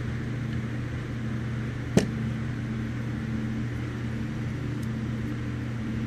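Steady low hum of a machine running in the room, with one sharp click about two seconds in as a carburetor is handled on the bench.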